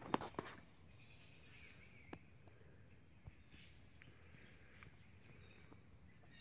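Quiet outdoor ambience with a faint, steady, high insect trill and a few soft ticks. There are a couple of sharper clicks right at the start.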